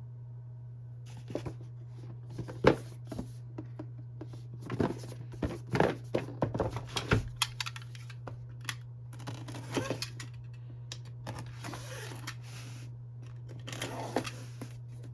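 Smartphone box and packaging being handled and opened: scattered clicks and knocks of cardboard and parts, with a couple of stretches of rustling packaging in the second half. A steady low hum lies underneath.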